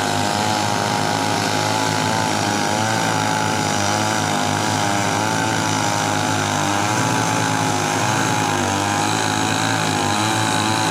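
Two-stroke chainsaw running steadily at high revs while cutting coconut wood, its pitch wavering a little.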